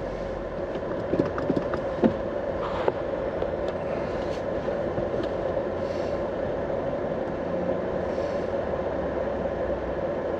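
Steady car cabin noise while driving: an even hum of road and engine, with a few small clicks about one to three seconds in.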